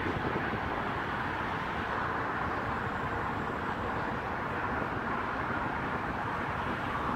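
Steady rush of wind and road traffic noise picked up at an open car window, with no distinct engine note standing out.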